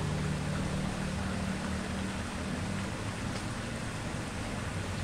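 Steady rushing of water flowing down a shallow stream channel and over a small weir. A low steady hum underneath fades out in the first half.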